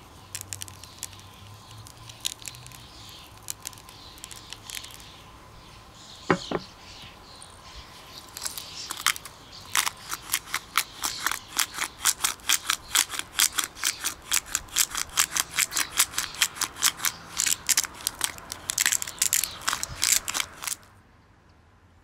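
Quick, regular cutting strokes from a blade, about four a second, starting around eight seconds in and stopping abruptly near the end. Scattered clicks and a short falling squeak come before them.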